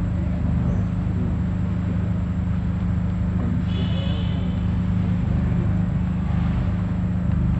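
An engine running steadily with a low, even hum. A brief high chirp sounds about four seconds in.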